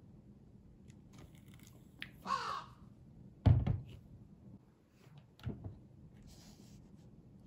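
A crow caws once, a harsh call about two seconds in, followed a second later by a loud accidental thump and a softer knock a couple of seconds after that.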